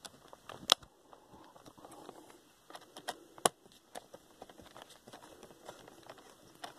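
Hands working on a Gateway MT6460 laptop's plastic case: a few sharp clicks and taps, two of them loud, about a second in and halfway through, over faint handling and rustling.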